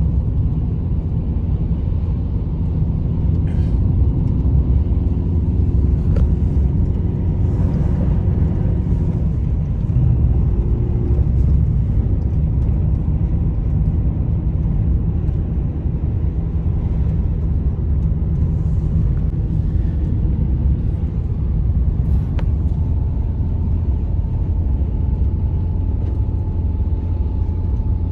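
Strong blizzard wind rumbling steadily, with a faint high whistle running through it.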